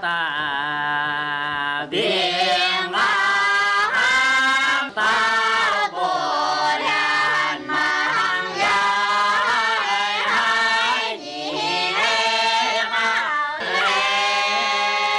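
Dong (Kam) villagers singing a traditional song together in their own language, with long held notes and short breaths between phrases; a low note is held under the melody at the start.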